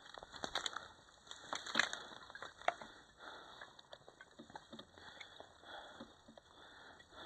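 Footsteps crunching over rubble and grit, with gear rustling: a string of irregular crunches and clicks, the sharpest two about two and three seconds in.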